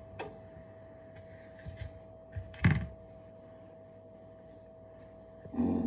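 Kitchen handling noises as cold cookie dough is scooped from a plastic tub with a utensil: scattered light clicks and scrapes, one sharper knock about two and a half seconds in, and a short low sound just before the end. A faint steady hum runs underneath.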